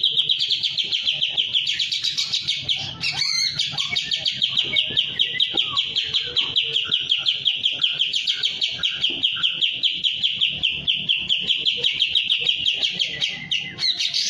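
Kapas tembak songbird in breeding condition singing vigorously: a long, unbroken run of rapid repeated chirping notes, about seven a second, with a brief break about three seconds in.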